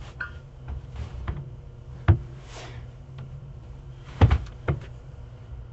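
A few sharp knocks or thumps over a low steady hum: one loud knock about two seconds in, then two or three more close together a little after four seconds, with fainter clicks between them.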